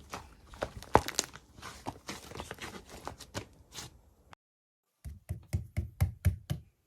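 Slime being squeezed and pressed by hand, giving an irregular run of sticky clicks and pops. The sound cuts out completely for under a second about four seconds in, then the clicking resumes with a deeper, fuller pop.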